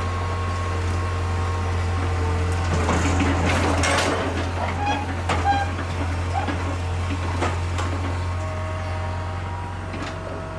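Heavy diesel machinery, a Hitachi excavator, running with a steady low drone, with intermittent metallic clanks and short squeals, the busiest stretch around the middle.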